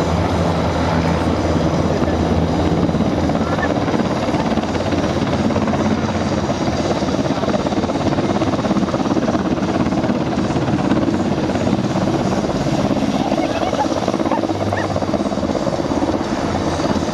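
Military helicopter hovering low, its rotor and turbine engines running loud and steady.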